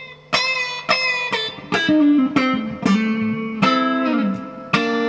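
Gibson Les Paul electric guitar played as a lead line: about eight single notes picked one after another, each ringing on, with several bent up and released.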